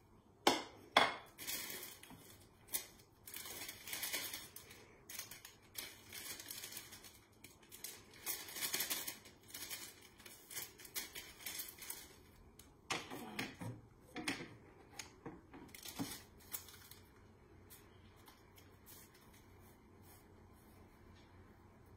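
A spoon clacks sharply against a plastic mixing bowl of muffin mix, a few times. A plastic mix packet crinkles as it is handled over the bowl, followed by a few more knocks on the bowl.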